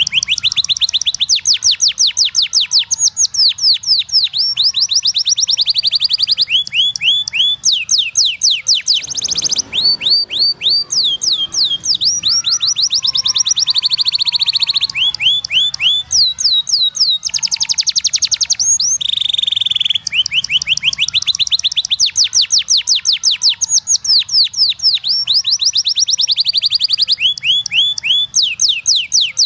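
Domestic canary singing a long unbroken song of rapid trills: quick runs of high notes that each sweep down in pitch, the phrase changing every second or two.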